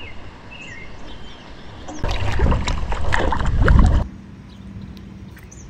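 Kayak paddle strokes splashing in river water: about two seconds in, a loud stretch of paddling and sloshing starts, and it stops abruptly about two seconds later.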